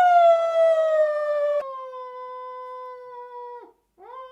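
A man's voice howling like a dog in one long, slowly falling note. About one and a half seconds in it cuts abruptly to a quieter, steady held vocal note, which stops shortly before the end; another held note rises in just before the end.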